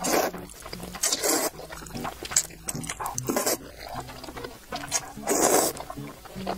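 Instant noodles slurped up from a sauce-coated bowl in four loud slurps, near the start, about a second in, past the middle and near the end, with small wet mouth clicks between.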